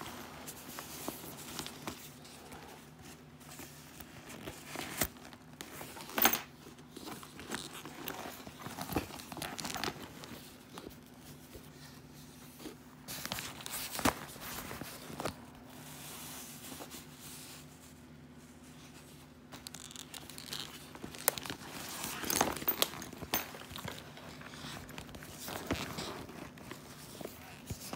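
Fabric diaper bag handled close to the microphone: its cotton denim shell and shiny red lining rustling and crinkling as it is turned and opened, with scattered sharp handling knocks and clicks.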